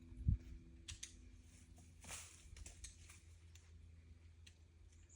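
Scattered light clicks and a short rustle of climbing rope and gear being handled, with one dull thump just after the start, over a low steady rumble.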